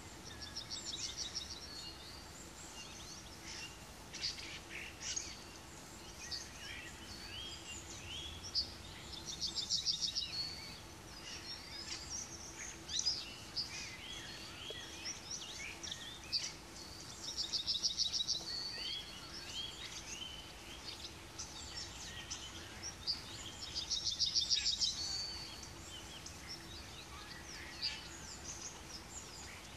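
Wild songbirds calling and chirping steadily. A louder, fast trill of rapidly repeated high notes comes four times, each about a second long. A faint steady hum sits underneath.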